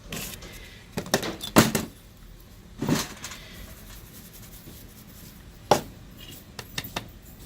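Hand tools and small metal pieces being handled on a jeweller's bench: a scattering of light clicks and knocks, with a sharp knock about a second and a half in, a short scrape around three seconds, and another sharp knock near six seconds.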